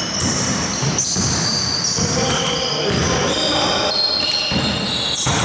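Basketball game play on a hardwood gym court: a ball bouncing and sneakers squeaking in quick, scattered chirps.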